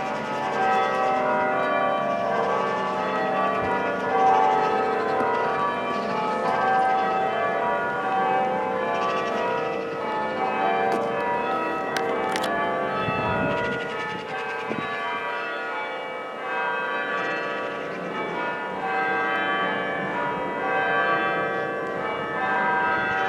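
Six church bells rung full-circle in changes, a treble bob minor method, with strikes following one another in a steady, overlapping stream.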